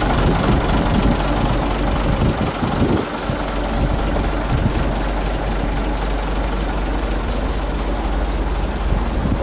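Heavy vehicle engine idling steadily, mixed with a low rumble of wind on the microphone.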